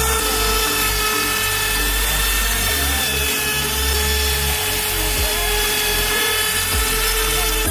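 CNC router spindle running at about 18,000 rpm and milling plywood with a 3 mm two-flute straight bit: a steady high whine over the continuous noise of the cut.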